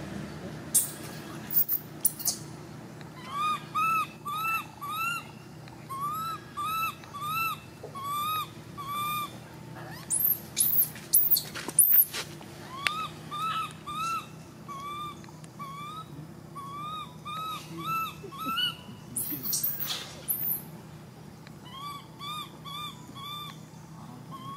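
Infant long-tailed macaque crying: bouts of short, arching calls repeated about three a second, broken by a few loud, shrill screams about a second in, around the middle, and about three-quarters through.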